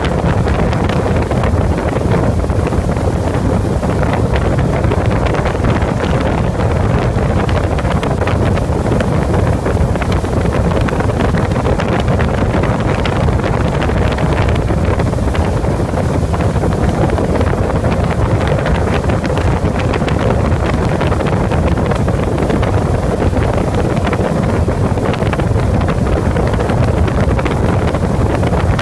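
Wind buffeting the microphone over the steady drone of a towboat's engine and the rush of its wake while the boat runs at speed.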